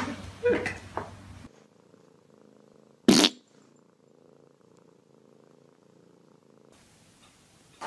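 Domestic cat purring softly, broken once about three seconds in by a sudden, very short, loud burst.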